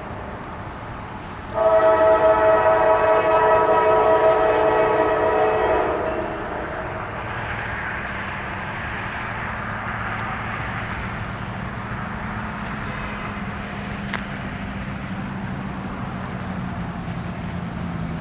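Multi-tone air horn of a GE AC44C6M diesel locomotive leading a freight train: a previous blast fades out at the start, then one loud chord is held for about four and a half seconds from about a second and a half in. After it, the approaching locomotives' diesel engines and the train's running gear make a steady rumble.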